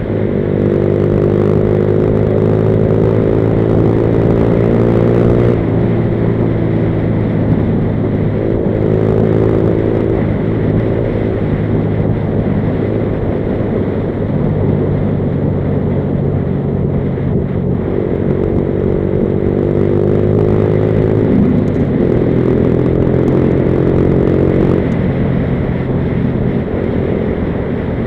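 Junak motorcycle engine running steadily while riding at road speed, its note dipping and picking up again a few times as the throttle and speed change.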